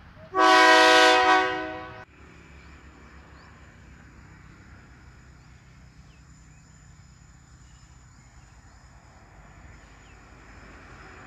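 Diesel railcar's horn sounding one loud blast of several notes at once, lasting about a second and a half and cut off abruptly. After it comes a quiet outdoor background with a faint low rumble.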